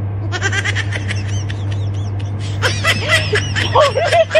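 Women laughing and giggling in quick high-pitched bursts, growing louder from about halfway in, over a steady low hum.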